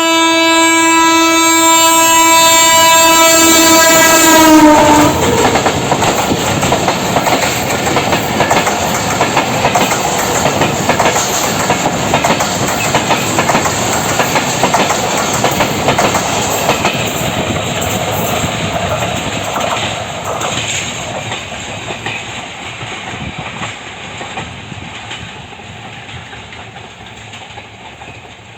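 Express train's diesel locomotive sounding its horn in one long blast of about five seconds, the pitch dropping as the locomotive passes. Then the coaches rush by with fast wheel clatter on the rails, fading slowly as the train moves away.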